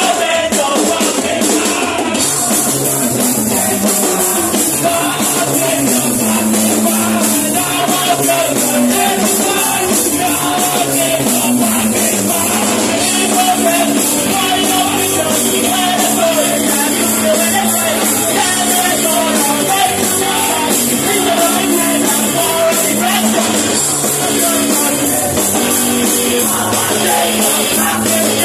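A punk rock band playing live and loud: drums with cymbals, amplified guitars and sung, shouted vocals over them, taken from within the crowd.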